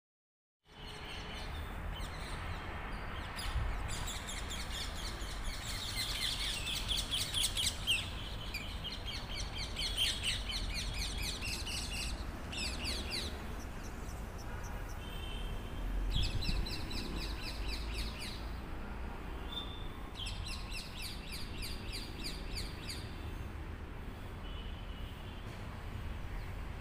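Small birds chirping in rapid high trills. The trills come in runs of a few seconds, over a steady low rumble.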